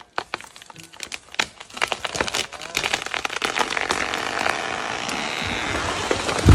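A tree falling: wood cracking and snapping in scattered sharp pops, then a dense, building rush of crackling as it comes down through the branches, ending in a heavy low thud as the trunk hits the ground at the very end.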